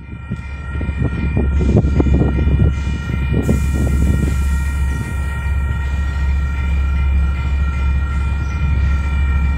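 A KiwiRail DL-class diesel-electric locomotive approaching at the head of a coal train. A low steady rumble runs under a long, held, multi-note horn chord, and the sound fades in over the first second.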